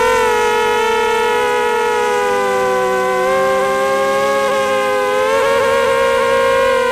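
Racing quadcopter's brushless motors and propellers whining, picked up by its onboard camera: a steady pitched whine that sags a little in pitch through the middle and climbs again near the end as the throttle changes.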